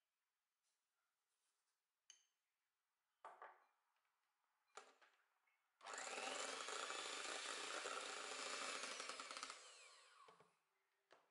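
Kenwood electric hand mixer beating egg-white meringue in a stainless steel bowl as the sugar goes in. It starts about six seconds in after a few light knocks, runs steadily with a high whine for about four seconds, then winds down.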